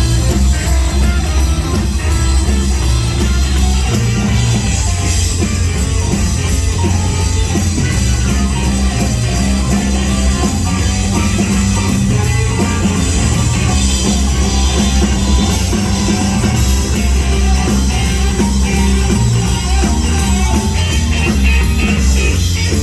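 Live rock band playing a blues-rock song: electric guitar, drum kit and a bass line that moves note to note.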